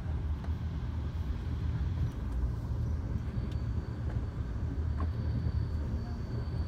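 Steady low rumble of an Amtrak passenger train in motion, heard from inside the passenger car, with a few faint clicks; a faint high whine comes in about halfway through.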